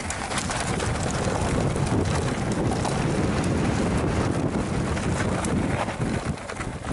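Wind buffeting the microphone while an enduro mountain bike rides a rough dirt trail, with the tyres crunching and many short rattles and knocks from the bike over the ground.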